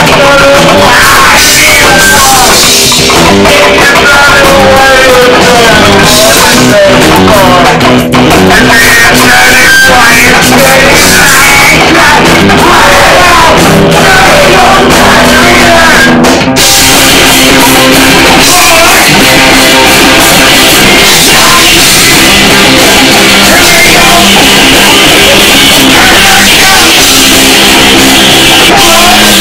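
A live rock band playing loud, with electric guitars, a drum kit and a singer's voice. About sixteen seconds in, the music drops out for a moment and comes back denser and heavier.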